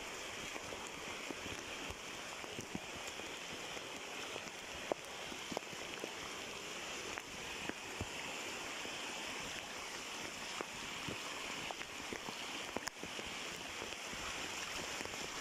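Steady rush of stream water flowing over rocks, with a few sharp clicks scattered through it.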